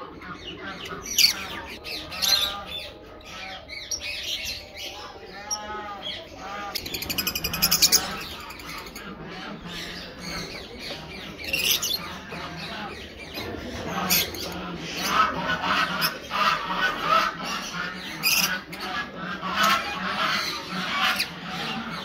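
Fischer's lovebirds calling: a continuous stream of shrill squawks and chirps, with a fast run of repeated calls about seven seconds in.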